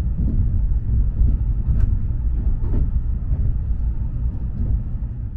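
A train running at speed, heard from inside the carriage: a steady low rumble of wheels and running noise with a few faint ticks.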